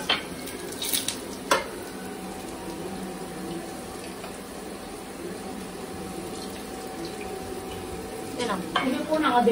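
Eggplant and potato slices shallow-frying in oil in a pan, a steady sizzle, with three light clicks of a silicone spatula against the pan in the first two seconds. A woman's voice comes in briefly near the end.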